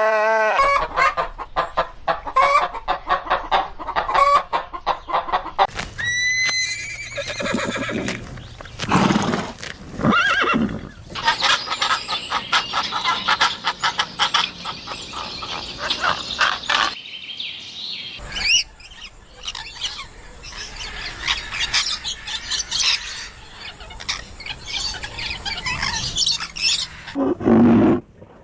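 Farmyard poultry sounds: chickens clucking in quick runs of calls, with crowing among them. The sound changes abruptly several times as one stretch of calls gives way to another.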